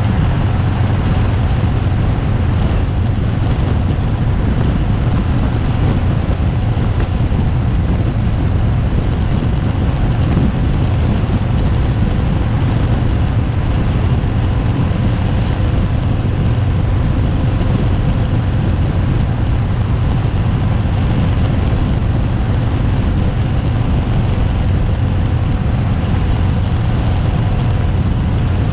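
Harley-Davidson Fat Bob's V-twin engine running at a steady speed, mixed with heavy wind rush on a handlebar-mounted camera.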